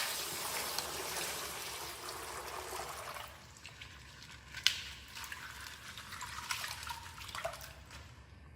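Plastic toy packaging crinkling and rustling as a mystery-pack figure is unwrapped, a dense crackle for about three seconds, then quieter handling with a few sharp clicks.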